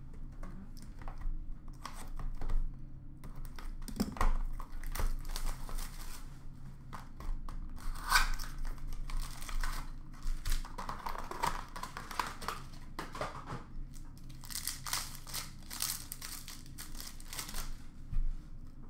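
Trading-card pack wrappers being torn open and crinkled, with cards handled between the tears: an irregular run of sharp crackles, thickest near the middle and toward the end.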